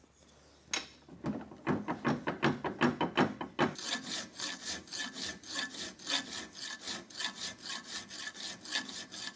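Dreadnought file cutting aluminum in rapid back-and-forth strokes, about four or five a second; about four seconds in the strokes turn quicker and lighter.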